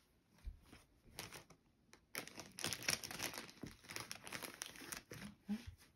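Crinkly packaging being handled: a few clicks, then about three seconds of quick crinkling and rustling.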